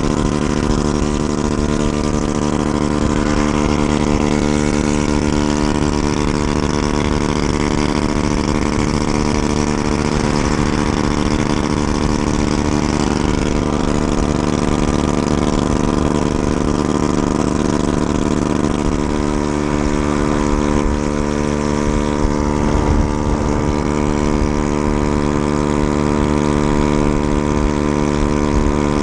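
Honda Ruckus scooter's small single-cylinder four-stroke engine running at a steady cruising speed, with wind rushing over the microphone. The engine note shifts slightly about two-thirds of the way through.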